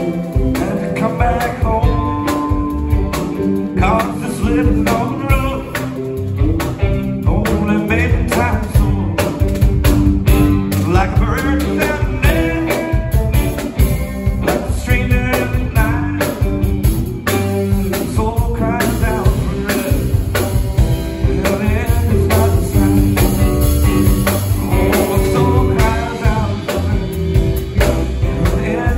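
Live rock band playing: two electric guitars over a drum kit with a steady beat, with a singer at the microphone.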